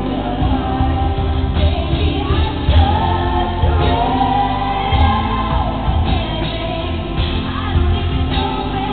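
A female pop singer singing a slow ballad live over amplified accompaniment, holding long notes with a strong, steady bass beneath.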